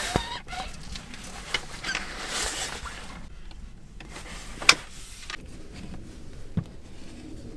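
A few sharp knocks and clicks over low rustling, the loudest about four and a half seconds in.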